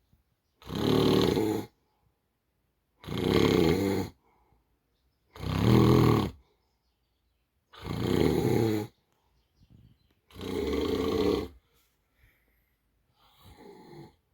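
A sleeping man snoring loud, deep snores, five in a row about every two and a half seconds, each lasting about a second, with a fainter one near the end.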